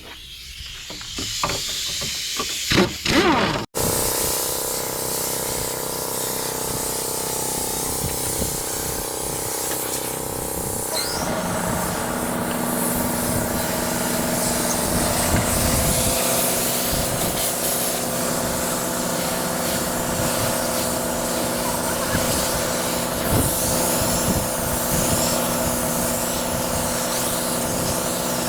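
A truck's diesel engine running steadily, with a hiss over it. The sound cuts in abruptly about four seconds in and changes slightly about eleven seconds in.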